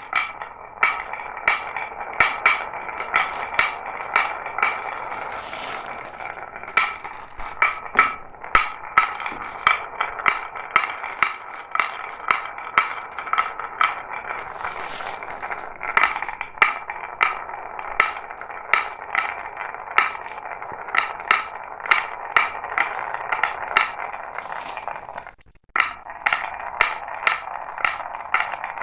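Marbles rolling along a marble run track: a continuous rolling hum with many sharp clicks, roughly two a second, as marbles knock and drop. The sound breaks off for a moment near the end.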